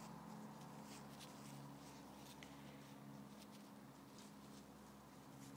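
Near silence: a faint steady low hum with a few soft, short ticks scattered through it.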